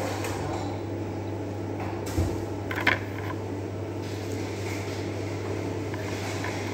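Steady mechanical hum and air noise of the restaurant's fans or cooling equipment, with a short low thump about two seconds in and a sharp click a moment later.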